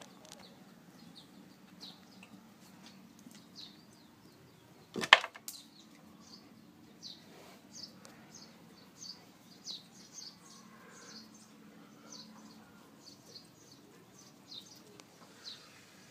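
Short high chirps, typical of a small bird, repeating about twice a second, with one sharp knock about five seconds in that is the loudest sound.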